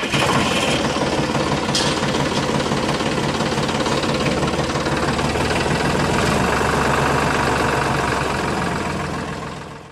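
Tractor engine running steadily with a dense knocking rumble, fading out near the end.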